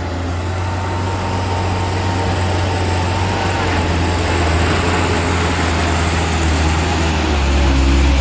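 Diesel engine of a Mitsubishi Fuso dump truck labouring up a steep dirt grade with a pickup in tow on a chain. It is a steady low drone that grows louder as the truck comes close and passes, swelling most near the end.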